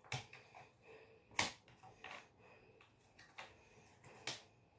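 Cardboard jigsaw pieces being handled and sorted, giving about five light scattered clicks and taps as pieces are picked up and dropped. The sharpest tap comes about a second and a half in.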